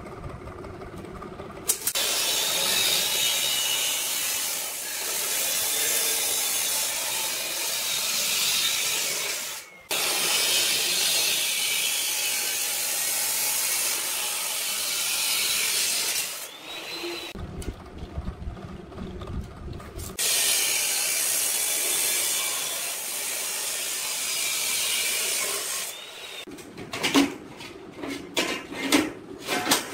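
Abrasive cut-off saw grinding through square steel tubing in long cuts with short breaks between. Near the end, a few sharp clanks of steel tubes being set down on a steel table.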